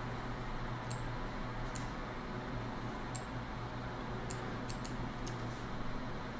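Faint computer mouse clicks, about six scattered through, over a steady low electrical hum.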